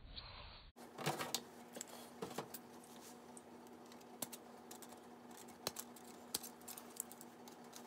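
Scattered light clicks and rattles of a plastic model-kit parts tree being handled, with sharp snips of side cutters clipping parts off it.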